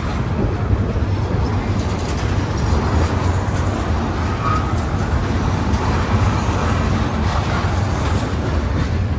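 Freight train of tank cars and flatcars rolling past on the rails, a steady low rumble with a noisy wash over it.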